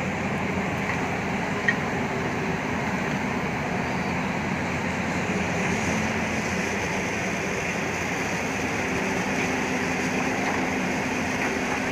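Tata Hitachi ZAXIS 220LC hydraulic excavator's diesel engine running steadily under working load as the machine digs and swings, with one short sharp click about two seconds in.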